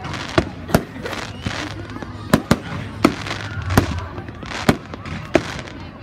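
Fireworks display: aerial shells bursting overhead, about eight sharp bangs in quick, irregular succession, with a steady background noise between them.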